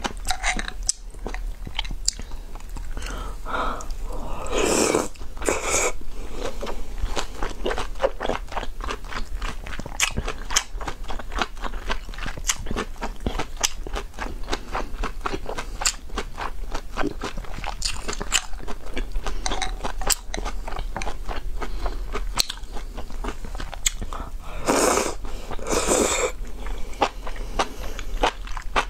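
Close-up eating of noodles from spicy hot-pot broth: rapid wet chewing with many small mouth clicks throughout. Two stretches of louder slurping, about five seconds in and again about twenty-five seconds in.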